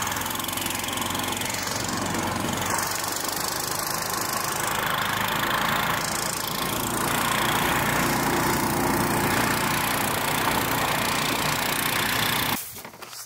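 Engine of an over-snow vehicle running steadily under way, with a dense rushing roar of wind and travel; the sound cuts off suddenly near the end.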